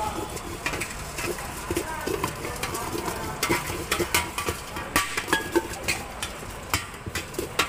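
Puffed rice being mixed with spices in a large steel vessel, giving irregular metallic clinks and knocks. Voices chatter in the background.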